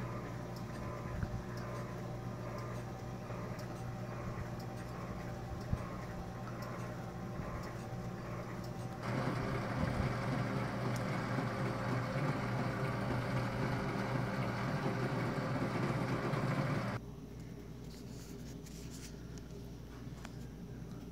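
Emergency light bar running with a steady mechanical whir of its rotator motors. About nine seconds in, a louder, fuller whir comes in and lasts about eight seconds, then cuts off suddenly, leaving a lower hum.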